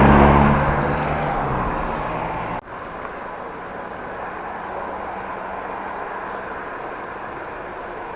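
A motor vehicle's engine passing close by, loudest at the very start and fading away over about two seconds. After a brief dropout comes a steady rush of wind and tyre noise from riding the bicycle.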